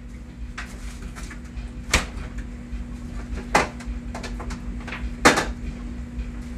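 Refrigerator door opened and things moved about inside it: three sharp knocks a second or two apart and a few fainter clicks, over a steady hum.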